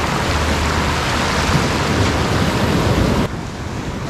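Surf washing up on a sandy beach, with wind rumbling on the microphone. A little over three seconds in the sound drops abruptly to a quieter, softer wash of waves.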